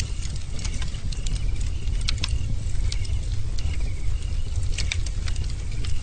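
Bonfire burning, with a steady low rumble under irregular sharp crackles and pops from the burning wood.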